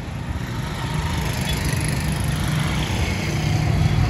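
A motor vehicle engine running on the road, growing slowly louder.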